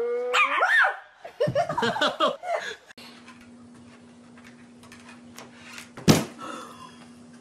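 A small dog gives a short rising vocal call, then a person laughs for about a second and a half. After a cut, a faint steady low hum runs under one sudden loud thump about six seconds in as the cats move.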